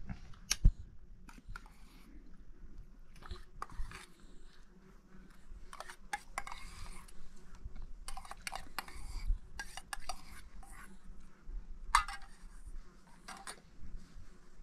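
An eating utensil scraping and clinking on a plate held in the hand while a man eats, with a sharp clink just after the start and another about twelve seconds in.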